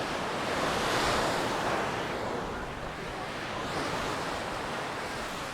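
Sea waves breaking and washing up a sandy beach, one wash swelling loudest about a second in and a smaller one near four seconds.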